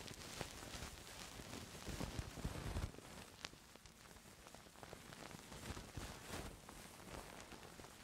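Close, soft scratching and rustling with small crackles from ASMR ear cleaning on a microphone, with a few low bumps about two seconds in.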